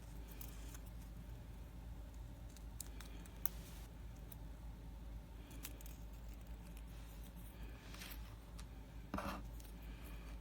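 Faint scattered clicks and small handling sounds over a low steady hum, with a brief louder rustle about nine seconds in.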